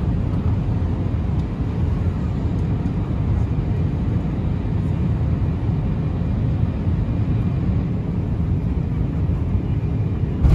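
Steady low rumble of engines and airflow inside an Airbus A350-900 passenger cabin on final approach, just before touchdown.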